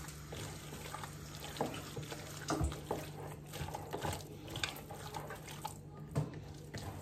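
A hand kneading raw minced-meat filling with chopped tomato in a mixing bowl: soft, irregular wet squelches and squishes.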